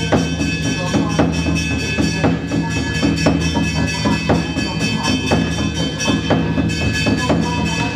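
Large Chinese barrel drum beaten with sticks in a steady beat, about two strokes a second, over steady sustained tones.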